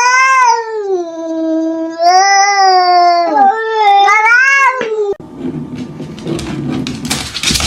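A cat yowling in one long drawn-out wail whose pitch sags and rises, breaking off about five seconds in. Rustling noise and clicks follow.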